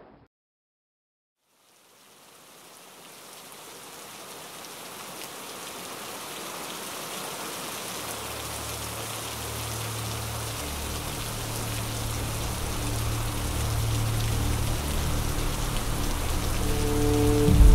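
Steady rain, fading in from silence and slowly growing louder. A low, sustained music drone joins about halfway through.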